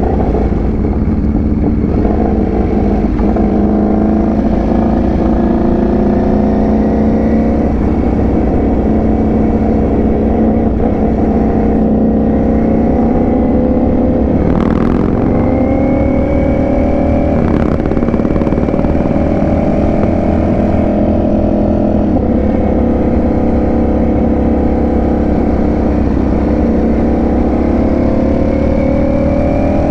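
Ducati Panigale V4 S's V4 engine running under way at road speed, its pitch drifting slowly up and down with the throttle over a heavy low rumble. Brief sharp noises come about halfway through, after which the pitch climbs again.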